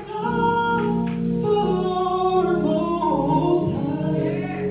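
Gospel singing with musical accompaniment: sustained, held chords under sung lines.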